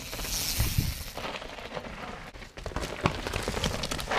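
Mountain bike ridden fast down a rough dirt forest trail: tyres rolling and skidding over soil and roots, the bike and camera mount rattling with many short knocks, and wind rushing over the microphone in the first second or so.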